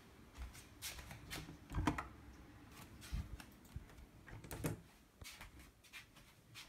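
Interior door with a chrome lever handle being opened: a series of light clicks and knocks from the handle and latch, the loudest about two seconds in.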